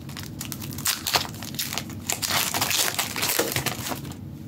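Foil Pokémon booster pack wrapper crinkling and crackling as it is handled and torn open: a dense run of crisp crackles that eases off near the end.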